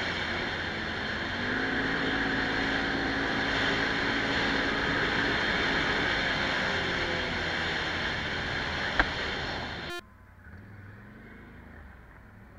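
Quad bike (ATV) engine running under way on a dirt track, its pitch drifting up and down a little with the throttle, with wind rush over the microphone. One sharp click about nine seconds in; a second later the sound drops suddenly to a much quieter engine hum.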